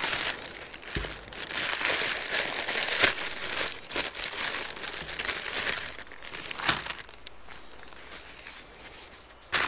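Paper bakery bag crinkling and rustling as it is opened by hand and a bread roll is taken out, with a single knock on the wooden table about a second in. The rustling dies down to a faint rustle after about seven seconds.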